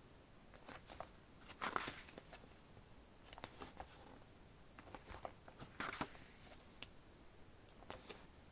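Pages of a glossy album photobook being turned by hand: faint, brief paper rustles every second or two, the clearest about two seconds in and about six seconds in.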